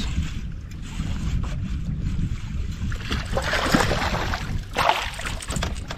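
Strong wind buffeting the microphone with a steady low rumble, over water slapping against a fishing boat's hull. About halfway through come two louder rushes of noise.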